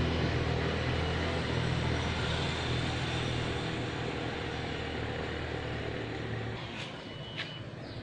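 Steady low hum of a vehicle engine out on the street, fading gradually as it moves away, with a brief high chirp about seven seconds in.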